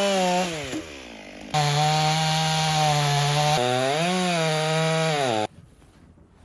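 Gas chainsaw running at high revs in several spliced bits. Its pitch sags and drops away about a second in, holds high and steady, dips and climbs again near four seconds, then cuts off abruptly a little before the end.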